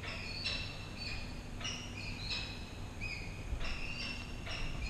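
A string of short, shrill screeching squeals, each about half a second long, repeating every half second to a second, with a faint steady low hum underneath. The source is unseen; it sounds to the listener like an old, long-unused elevator starting to move.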